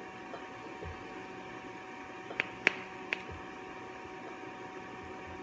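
Steady low electrical hum of room tone, with three short sharp clicks about two and a half to three seconds in, the middle one the loudest.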